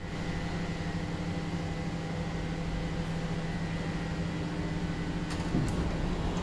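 Mitsubishi freight elevator car running in its shaft, a steady machine hum. A couple of clicks and a brief falling tone come about five and a half seconds in, as the car reaches a landing.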